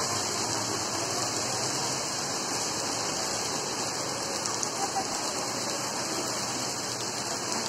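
Heavy rain falling steadily on paving: an even, unbroken hiss.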